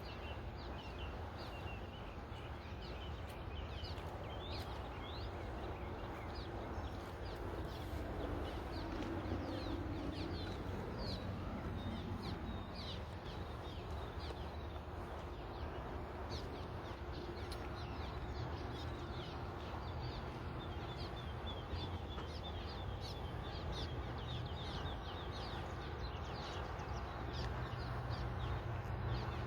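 Birds chirping, many short quick calls repeated throughout, over steady low outdoor background noise.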